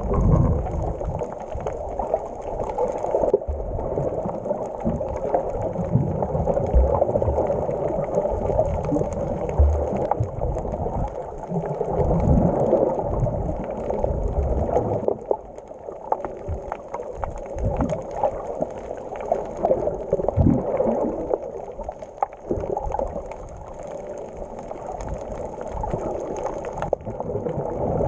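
Muffled underwater noise heard through a submerged camera housing: a continuous rush of moving water with irregular low thumps and knocks, and a faint steady high hiss.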